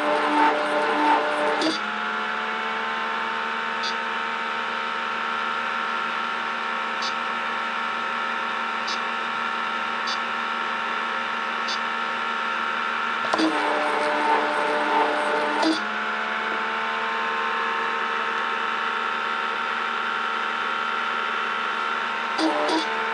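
PM600 pump in priming mode: a steady motor hum with a few fixed tones, overlaid by a louder run of the pump that stops about two seconds in, runs again for about two seconds past the middle, and starts once more near the end. A few faint ticks in between.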